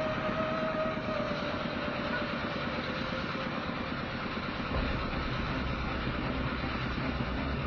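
Steady traffic noise: vehicles running, with a held high tone fading out over the first few seconds and a deeper rumble coming in about five seconds in.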